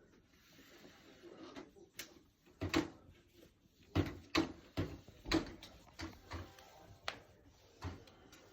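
A run of irregular knocks and bumps, about nine in five seconds, as a cat tussles with a Dyson vacuum cleaner that is switched off.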